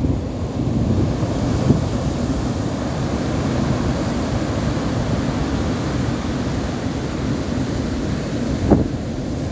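Ocean surf breaking on the beach with wind buffeting the microphone, a steady low rumbling noise, broken by two brief thumps, about two seconds in and near the end.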